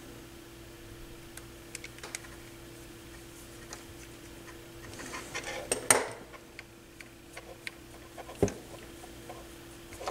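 Small metal parts and a screwdriver clinking and tapping against the turntable motor's housing during hand work, with a louder clatter about six seconds in and a single knock a couple of seconds later.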